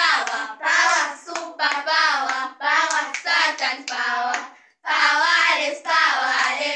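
A group of girls singing a song together in short phrases, with some hand claps among the singing.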